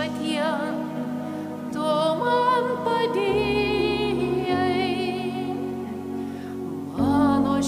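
A solo voice sings the responsorial psalm in Lithuanian with a wavering vibrato, finishing the line on 'Viešpatie' and carrying on over sustained accompaniment chords. The chords change a few times, and a louder chord comes in near the end.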